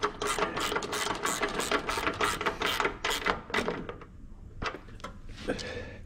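Ratchet wrench clicking in quick strokes as bolts are tightened down, stopping about four seconds in, with a few lighter clicks after.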